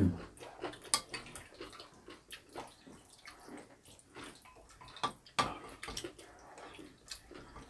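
Close-miked eating of black-bean-sauce noodles: scattered wet chewing and slurping, with now and then a click of a spoon or chopsticks against a bowl.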